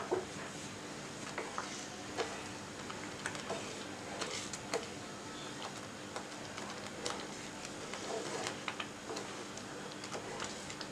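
Wooden spatula stirring a thick, thickening milk and cornflour pudding mixture in a nonstick pan: irregular light clicks and soft scrapes.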